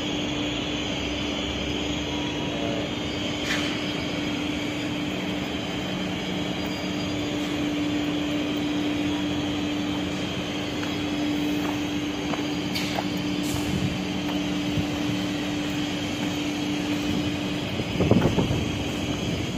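Steady drone of cement-plant machinery, with a constant low hum held throughout and a brief louder rumble near the end.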